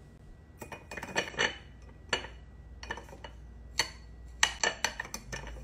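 Glassware and utensils clinking and knocking on a bar counter during cocktail making: a string of sharp clinks in small clusters, the loudest about four and a half seconds in.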